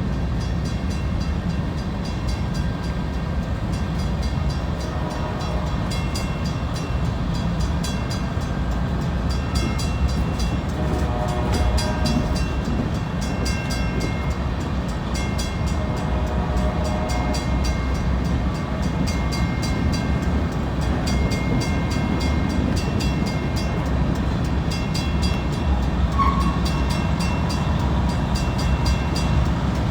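CSX freight train rolling past with a steady low rumble of wheels on rail. Faint stacked tones rise over it twice, about ten and sixteen seconds in.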